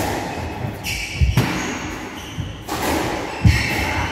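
Squash rally: the ball is struck with sharp smacks off the rackets and court walls, a few hits about two seconds apart, with the players' footwork on the wooden court floor in a reverberant hall.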